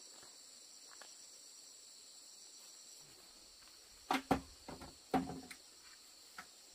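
Insects chirring steadily in a high, even chorus, one of their tones dropping out about halfway through. A little past the middle comes a quick cluster of sharp knocks and clatter, the loudest sounds here.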